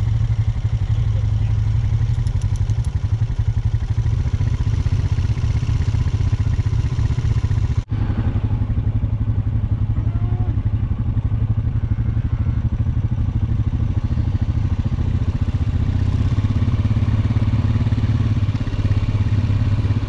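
Vehicle engine running steadily under way, with a brief dropout about eight seconds in.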